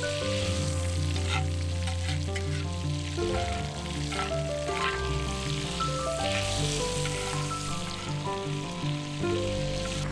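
Food sizzling in a Turk iron frying pan, with a few sharp crackles, under background music with a bass line.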